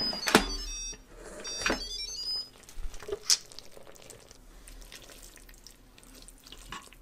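Instant Pot Duo Evo Plus pressure cooker lid twisted open with a couple of clicks, while the cooker plays a short run of high electronic beeps as the lid unlocks. About three seconds in there is a sharp clack as the lid is lifted off, followed by soft handling sounds.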